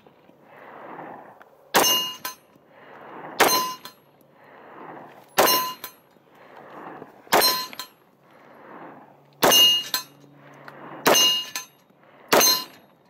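Heckler & Koch VP9 9mm pistol fired at a slow, steady pace: seven shots about one and a half to two seconds apart. Each shot carries a short metallic ring, which fits hits on a steel target.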